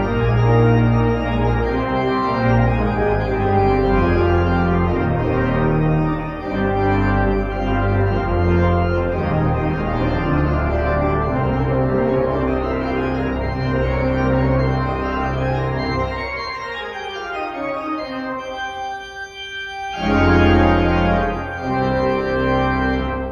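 Church organ playing a hymn prelude: sustained chords over a deep pedal bass. About sixteen seconds in the bass drops out and the sound thins and softens, then the full chords return at about twenty seconds.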